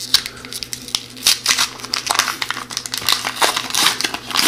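Wrapper of an O-Pee-Chee hockey card pack crinkling and tearing as it is pulled open by hand, a run of irregular crackles.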